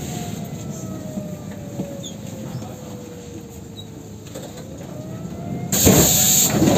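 Athens Metro Line 1 train standing at a station platform, heard from inside the car. A faint machine tone falls slowly for about four seconds, then a rising tone follows, and near the end comes a sudden loud hiss.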